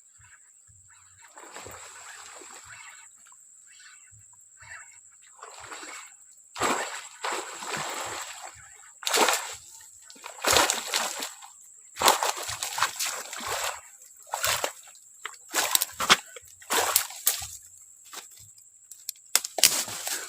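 Water splashing in a series of loud, irregular bursts that begin about six seconds in and come closer together and heavier toward the end.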